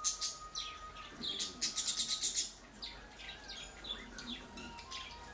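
Budgerigars chirping in quick, high runs of chatter, densest in the first couple of seconds, then sparser.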